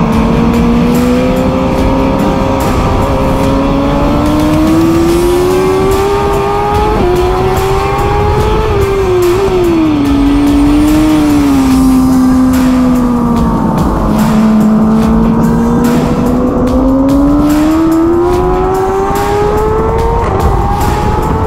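Superbike engine at racing speed, heard from an onboard camera: the revs climb for several seconds, drop as the bike slows and shifts down around the middle, then climb steadily again with a gear change near the end, over a hiss of wind rush.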